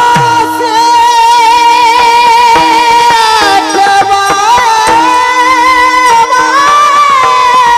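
Kirtan chaal singing in raga Bhairavi: a voice holds one long high note with small ornamental turns and bends, over a steady drone note.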